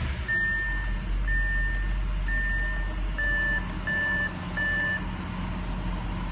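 Audi S7's twin-turbo V8 idling just after starting, under a run of in-car warning chimes: three longer beeps about a second apart, then three shorter, brighter beeps.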